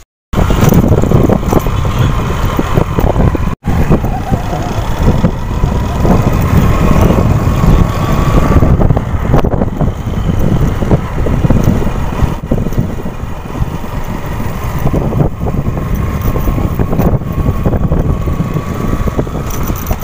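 Motorcycle ride: wind rushing and buffeting over the microphone, with the bike's engine running underneath. The sound cuts out for a moment right at the start and again a few seconds in.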